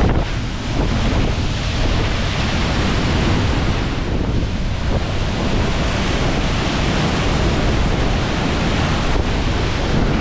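Large waterfall crashing into its plunge pool, a loud steady rush of falling water, with wind and spray buffeting the microphone.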